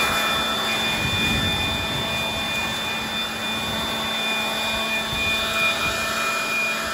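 Cordless electric leaf blower running at steady full speed with a high whine, blowing at smouldering grass and leaf litter.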